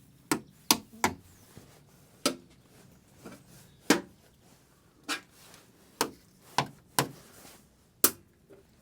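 A hand tool knocking on a hard part in a car's engine bay: about ten sharp knocks, three quick ones in the first second, then the rest spaced roughly a second apart.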